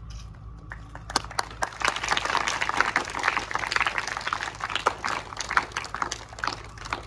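Audience clapping, a dense patter of many hands that starts about a second in, is fullest in the middle and thins out near the end.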